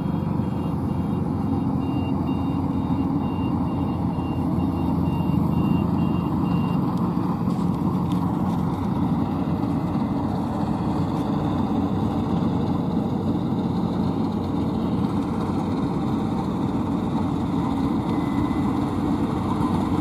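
Rice combine harvester running steadily, a continuous low machine drone. A faint, high, intermittent beeping sounds for a few seconds near the start.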